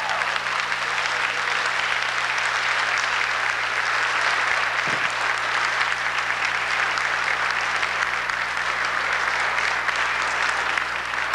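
Audience applauding at the end of a sung number: dense, steady clapping that holds at an even level throughout.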